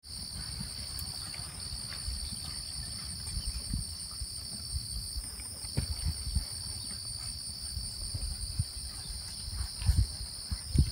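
Steady high insect chorus, two unbroken buzzing bands that run throughout. Under it are irregular low thumps and rumble, loudest about ten seconds in.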